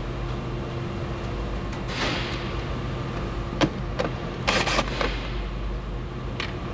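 A cordless power tool runs in one short burst about four and a half seconds in, just after two sharp clicks, over a steady workshop hum.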